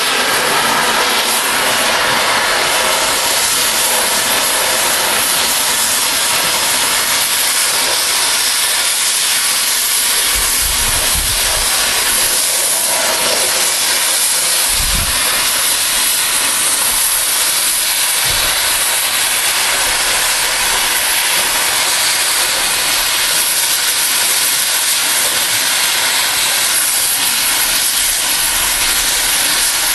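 Oxy-fuel cutting torch hissing steadily as it flame-cuts through steel railroad rail, with a few short low thumps around the middle.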